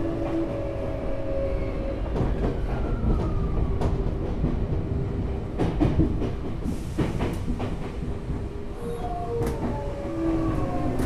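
Tokyu 9000 series electric train heard from inside the car: the Hitachi GTO-thyristor VVVF inverter and traction motors whine in several drawn-out tones that shift in pitch near the start and again late on, over a steady running rumble with scattered wheel clicks over rail joints.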